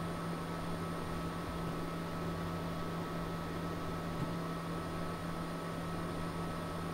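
A steady low hum over an even hiss, with a faint high steady tone, unchanging throughout; one small click about four seconds in.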